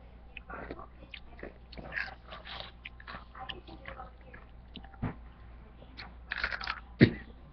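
A person chewing and biting food, with small crunches and wet mouth clicks. There is a louder crunchy bite a little after six seconds in and a short thump just before the end.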